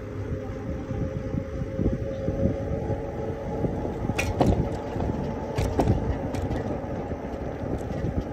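Steady low rumble of wind on the microphone and tyres rolling on a concrete path while riding an electric bicycle, with a few sharp knocks about four and five and a half seconds in.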